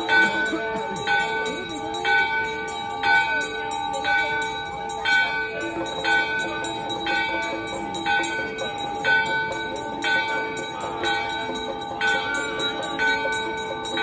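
Temple bell struck over and over, about two strikes a second, its tone ringing on between strikes.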